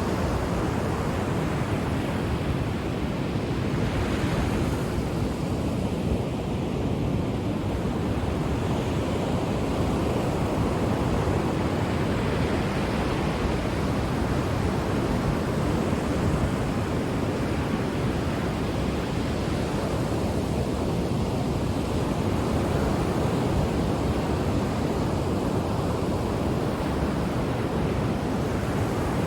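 Ocean waves breaking on a shore: a continuous rush of surf that slowly swells and eases over several seconds.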